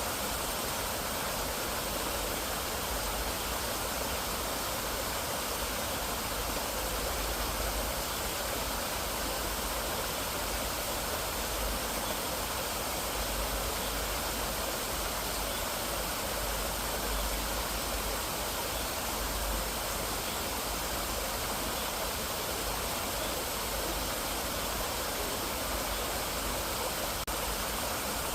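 Mountain valley stream rushing steadily, an even, unbroken water noise with a low rumble beneath it.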